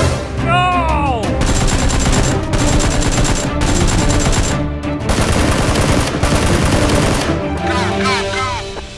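Bursts of rapid automatic gunfire over background music. Two quick falling whistle-like glides sound about half a second in and again near the end.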